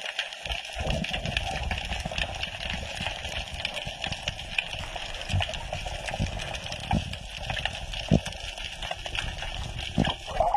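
Muffled underwater noise picked up by a diver's head-mounted action camera: a steady water hiss with a low rumble and a few scattered knocks.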